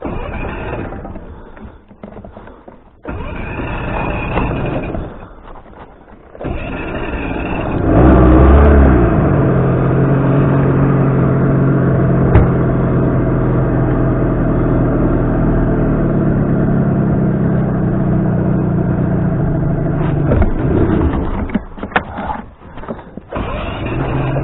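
Carbureted outboard motor being cranked in three short tries before it catches about eight seconds in, runs steadily for about twelve seconds, then stumbles and sputters near the end. It is a hard start that the owner suspects is the motor flooding out.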